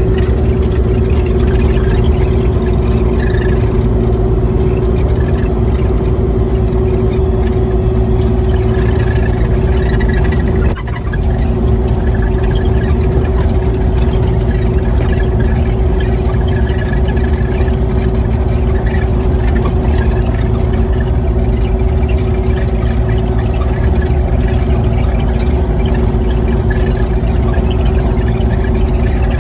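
Excavator engine running loudly and steadily, with a brief dip about a third of the way through.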